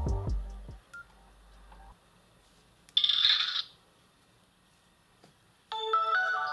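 Nokia E50 mobile phone ringtones: one melody cuts off in the first second, a short electronic bleep sounds about three seconds in, and the next polyphonic ringtone starts near the end.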